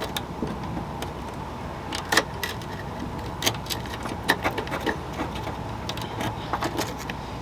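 Irregular light clicks and knocks of metal as chrome trim is pried and worked loose from the quarter panel of a 1972 Buick LeSabre.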